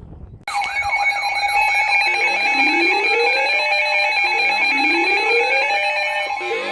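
Several emergency alert tones sounding together, starting abruptly about half a second in: steady alarm tones layered with a rising sweep that repeats about every two seconds. They announce a National Weather Service severe thunderstorm warning.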